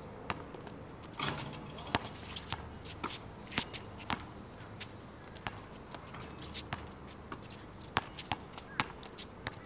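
Basketball bouncing on an outdoor asphalt court, a string of sharp, irregular slaps as the ball is dribbled, shot and rebounded.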